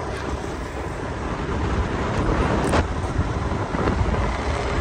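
Wind rushing over the microphone on a moving motorbike, with a steady rumble of engine and road noise underneath.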